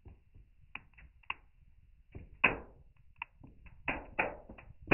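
A string of faint clicks and creaks from a spring luggage scale and its wire hook pulling on a super-glued 3D-printed part as the load builds toward breaking. One louder creak comes about halfway through, and more come close together near the end.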